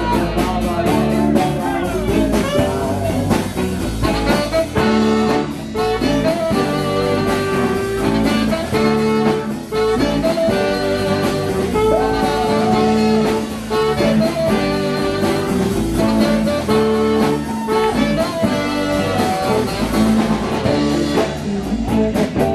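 Live rock band playing an instrumental passage: electric guitars over bass and drums, with saxophone, and long held notes over a steady beat.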